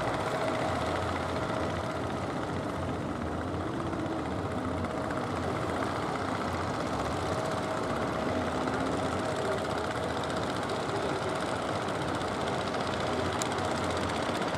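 Fishing boat engines running steadily across the water, a low hum with a thin steady whine above it.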